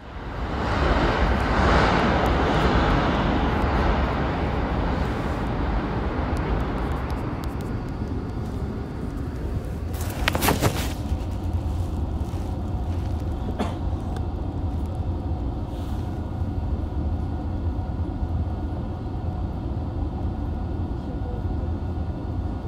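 Toei Asakusa Line 5300 series subway car standing at a station: a steady low hum of its onboard equipment. A rushing noise fades out over the first few seconds, and a brief clatter of clicks comes about ten seconds in.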